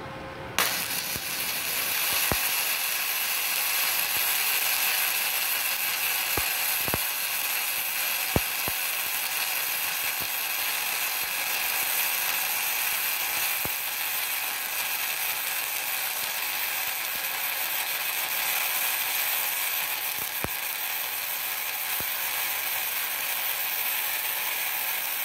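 Gasless flux-core MIG welding arc from a Multipro MIG-MMA/TIG 160A inverter welder set to about 89 A and 19 V. The arc strikes about half a second in and burns continuously with a steady hiss broken by occasional sharp pops.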